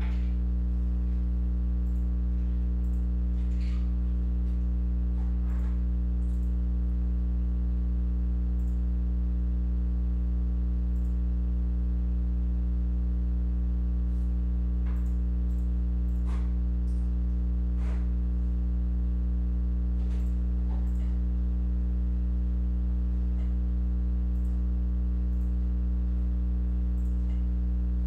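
Steady low electrical hum with a stack of overtones, unchanging throughout, with a few faint scattered clicks over it.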